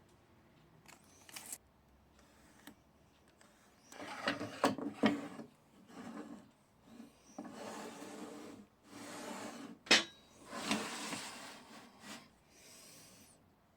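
Workshop handling noises: wood and tools rubbing and scraping in several stretches of a second or two, with one sharp knock about ten seconds in.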